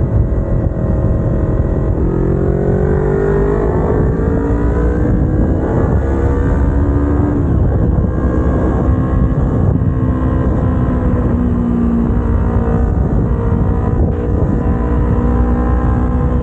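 Kawasaki Ninja 250R's parallel-twin engine under way, its revs climbing steadily for several seconds, then dropping about seven seconds in and settling at a steadier pitch, with another drop near the end.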